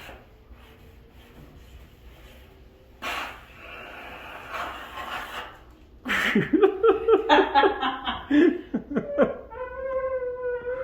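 A short spurt of hissing steam from a McCulloch canister steam cleaner's nozzle, lasting about two seconds, then loud laughing in quick bursts.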